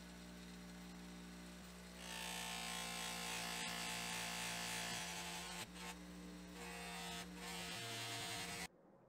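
Bench polisher motor humming steadily as a sewn cotton buffing wheel spins. From about two seconds in, a steel ratchet faceplate is pressed against the wheel, adding a louder rushing hiss with brief breaks as the piece is shifted. The sound cuts off suddenly near the end.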